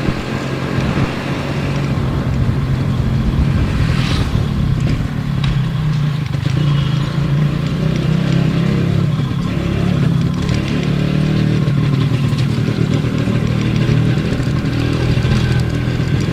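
Yamaha RX 135 two-stroke single-cylinder engine running under way. The engine note drops about five seconds in and climbs back a couple of seconds later as the throttle is eased and reopened.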